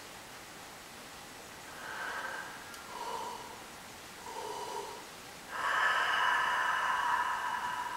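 A person yawning and breathing: three short breathy sounds, then a long, louder yawning exhale that starts about five and a half seconds in and lasts about two seconds.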